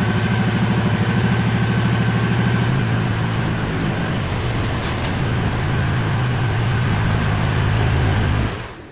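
MX-12R mini excavator's engine running while its hydraulic boom and arm are worked, a steady pulsing engine note that shifts about three seconds in and fades near the end.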